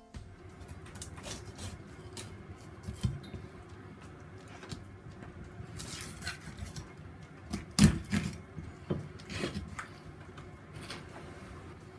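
Kitchen knife cutting behind the head of a yellowfin tuna on a plastic cutting board to take the head off: irregular scraping and rubbing of the blade, with scattered knocks, the loudest about eight seconds in.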